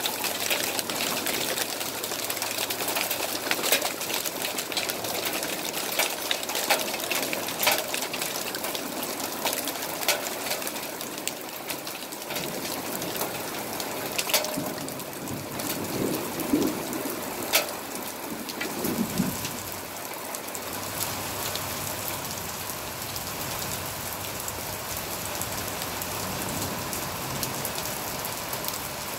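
Heavy thunderstorm rain pouring steadily onto a deck and lawn, with sharp ticks of drops striking close by, thickest in the first half. A low rumble comes partway through.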